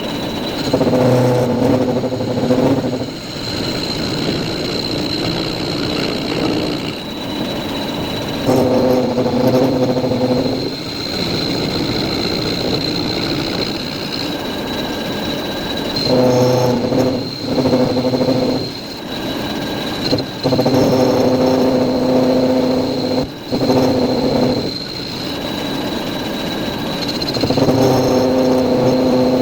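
Metal lathe running with a steady high whine. Several times a louder humming tone comes in for about two seconds, then drops away.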